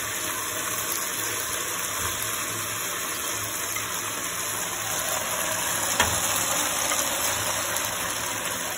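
Sauce sizzling steadily in a hot wok as fried eggplant pieces are slid in from a plate, over a low steady hum, with one sharp click about six seconds in.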